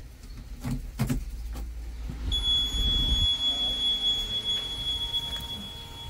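Ignition key switch on a JCB 3DX backhoe loader clicking twice as the key is turned, then the dashboard's warning buzzer sounding a steady high-pitched tone from about two seconds in, with the ignition on before the engine is started.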